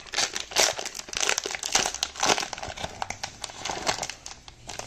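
Foil wrapper of a Parkhurst hockey card pack crinkling irregularly in the hands as the pack is opened and the cards are pulled out.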